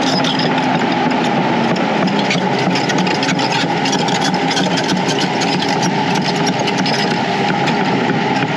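Doosan 225 excavator's diesel engine running steadily, with many light clicks and rattles over the engine hum.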